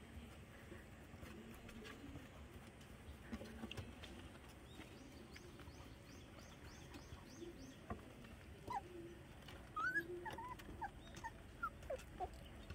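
Faint puppy whimpers: several short, high-pitched whines sliding up and down, clustered in the second half.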